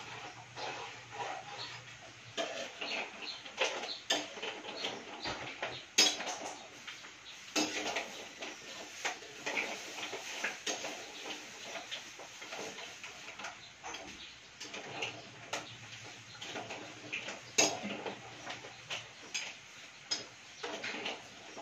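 A metal ladle stirring food in a metal cooking pan, clinking and scraping against it at an irregular pace, with a sharper knock about six seconds in and another near eighteen seconds.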